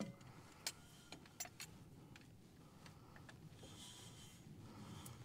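Near silence with a few faint clicks in the first two seconds and a faint high hiss around four seconds in.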